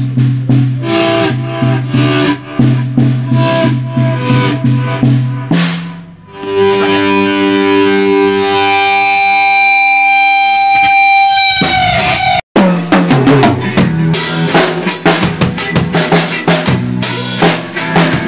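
Live rock band jamming. For the first five seconds or so the drum kit plays over a held low bass note. A sustained chord then rings for several seconds and slides down in pitch, and after a brief dropout busy drumming with cymbal crashes takes over.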